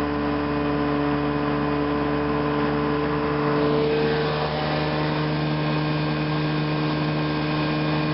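Airplane engine droning steadily at cruise, heard from inside the cabin, with the note shifting slightly about four seconds in.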